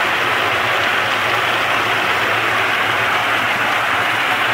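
Walnut peeling machine running with a full drum of walnuts: a steady churning rattle of nuts tumbling against the grated steel drum as water runs in, over a low steady motor hum.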